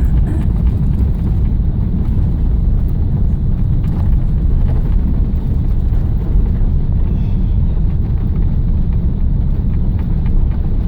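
Steady low cabin rumble inside an Airbus A380, the noise of the airliner's engines and its movement heard from a passenger seat.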